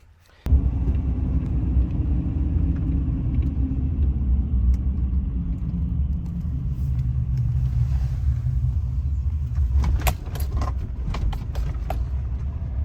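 Vehicle rumbling steadily along, with a cluster of sharp clicks and rattles about ten seconds in.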